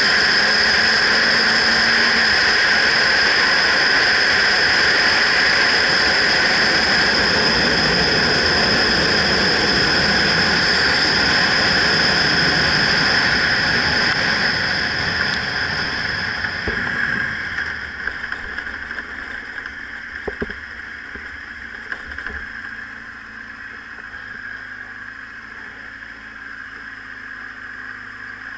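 Wind and road noise rush over a helmet-mounted camera on a moving motorcycle, with a steady whistle in it. From about halfway through it dies down as the motorcycle slows and pulls onto a gravel shoulder, leaving the engine running quietly with a few small clicks.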